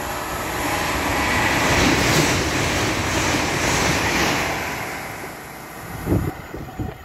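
A high-speed passenger train passing straight through the station close to the platform: a rush of wheel and air noise that builds for about two seconds, holds, then fades away. Gusts of wind buffet the microphone near the end.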